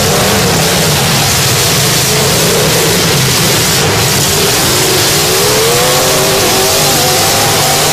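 Several demolition derby cars' engines running at high throttle together, loud and steady, with revs climbing from about halfway through.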